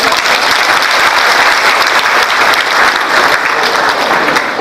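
An audience applauding, many hands clapping together at a steady level that eases slightly near the end.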